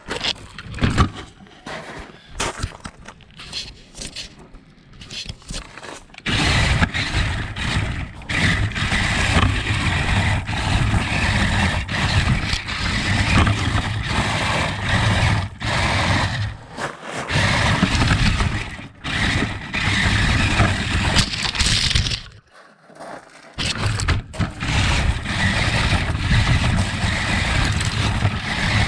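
Radio-controlled toy car running, its motor and wheels going over rough ground, starting about six seconds in after a few scattered knocks and clicks, and cutting out briefly a few times.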